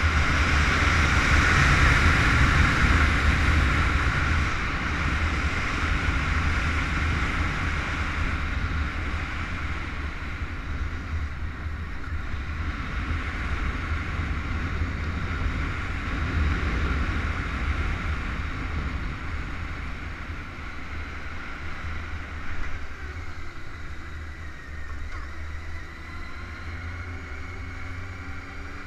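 Honda CBR919RR inline-four engine running under wind buffeting on the onboard microphone as the bike rides the circuit, growing gradually quieter as it slows. Near the end a faint rising engine note comes through the wind.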